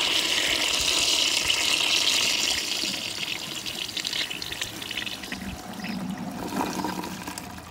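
1920s Kohler Selkirk toilet flushing soapy water: water rushes loudly through the foam-filled bowl for about three seconds, then fades to quieter draining and swirling as the bowl empties.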